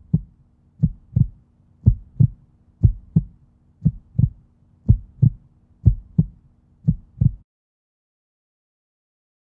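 Heartbeat sound effect: paired lub-dub thumps about once a second over a faint steady hum. It cuts off suddenly about three-quarters of the way through, leaving silence.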